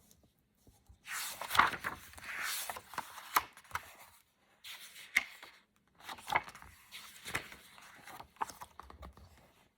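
Paper rustling and crinkling with sharp clicks, in several bursts with short pauses: a book being handled and its pages turned.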